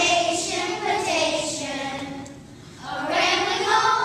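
A group of children singing together, breaking off briefly a little past halfway and then coming back in.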